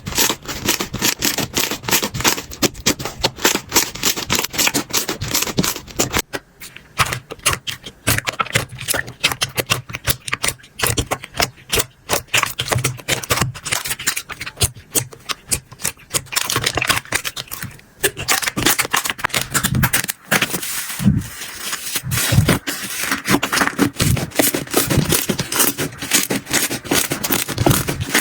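Slime being squeezed and poked by hand, making a dense run of rapid crackling clicks and sticky pops, with a few short pauses.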